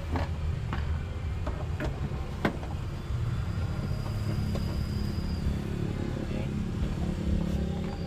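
A few light clicks and knocks in the first few seconds as a seat-belt retractor's plastic housing is handled against the van's metal side panel, over a steady low rumble.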